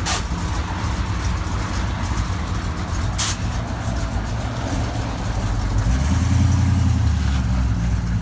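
OBS Chevrolet pickup's engine running at idle with a low rumble, then getting louder at about six seconds in as the truck pulls away. Two brief sharp clicks, one at the very start and one about three seconds in.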